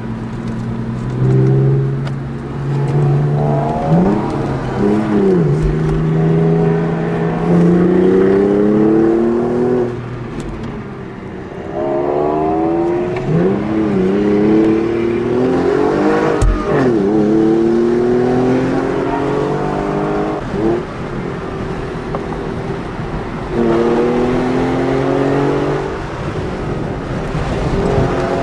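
Porsche flat-six engine accelerating hard up a mountain road in repeated pulls. The pitch climbs through each gear and drops back at every upshift, with short lifts off the throttle between pulls, heard from inside the car.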